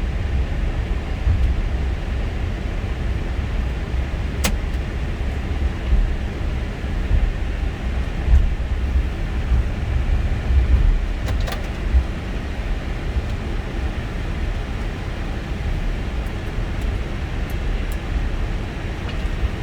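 Airbus A320 flight deck noise while taxiing after landing: a steady low rumble under an even hiss, with a faint click about four seconds in and another about eleven seconds in.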